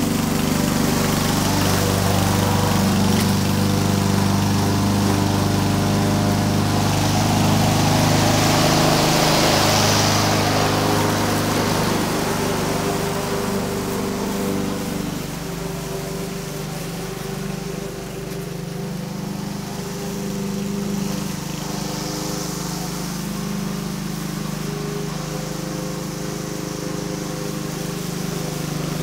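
Gas walk-behind lawn mower engine running steadily while cutting grass, louder in the first half as it passes close by, then fainter after the middle as it moves away.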